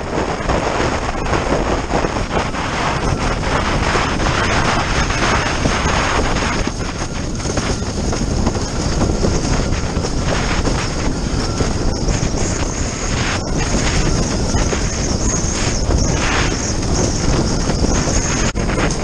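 Steady wind buffeting a windsurfer's action-camera microphone, mixed with water rushing and splashing past the moving windsurf board.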